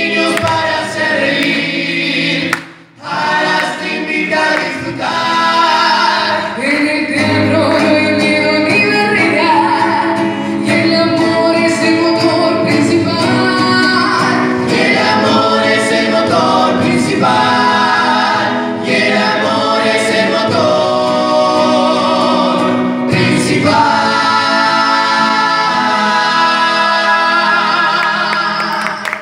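A small mixed vocal group of men's and a woman's voices singing a song in harmony to an acoustic guitar, with a short break a few seconds in and long held notes near the end.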